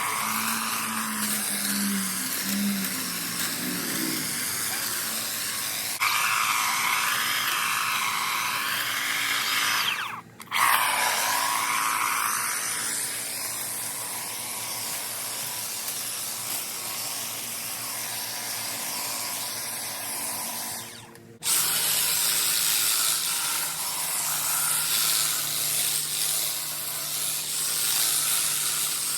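Battery-powered Stihl KMA 130R with extension hedge trimmer attachment running, a steady electric buzz whose pitch wavers up and down as it works. It drops out briefly twice, about ten and about twenty-one seconds in.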